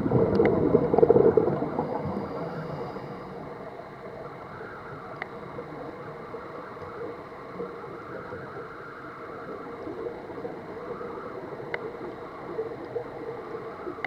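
Scuba diver's exhaled bubbles heard underwater, a loud gurgling rush in the first two seconds, then a steady hiss with a few faint clicks.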